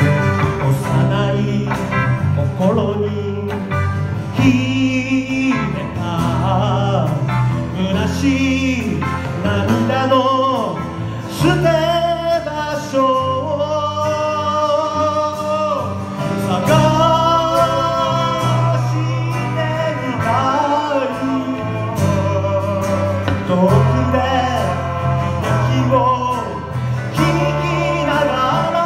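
A live band playing a Japanese pop song: a male voice sings long, held melody lines over acoustic guitar, grand piano, electric bass and electric guitar.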